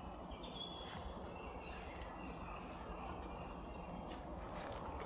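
Woodland ambience: a steady low hiss with a few short, high bird calls scattered through it, and a few faint clicks near the end.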